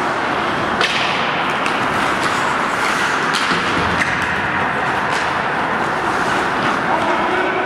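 Ice hockey play heard from the stands: several sharp clacks of sticks and puck and knocks against the boards, the strongest around three and a half to four seconds in, over a steady hiss of skates and rink noise.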